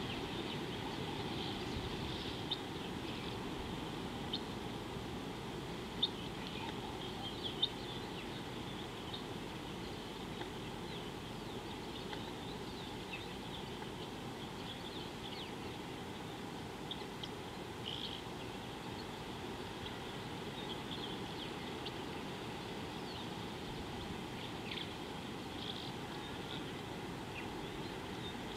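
Outdoor wildlife ambience: many short, high bird chirps scattered over a steady low background rumble, with a few sharp ticks in the first several seconds.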